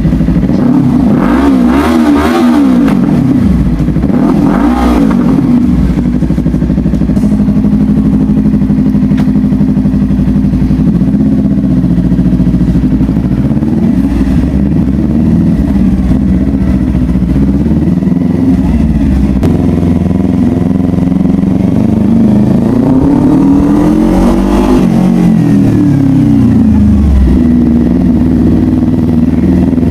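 Yamaha R3 motorcycle's parallel-twin engine running through a newly fitted aftermarket exhaust, idling with throttle blips: two quick revs in the first few seconds and a longer rise and fall later on.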